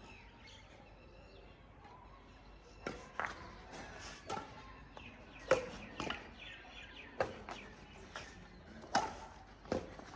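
Badminton rackets hitting a shuttlecock back and forth in a rally: a string of sharp cracks, roughly one a second, starting about three seconds in.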